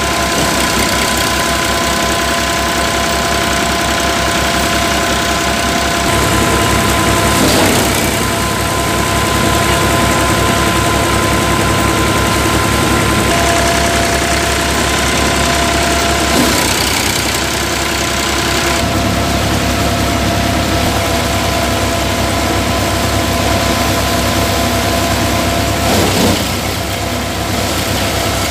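Tractor engine running steadily under load, driving a Dasmesh paddy thresher through its power take-off, with a steady whine from the thresher's spinning drum. A few brief louder rushes come through as paddy bundles are fed into the drum.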